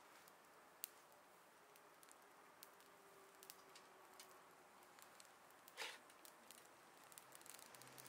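Faint crackling of thin dry twigs burning in a small stainless-steel wood stove: scattered sharp ticks, with one louder crackle about six seconds in.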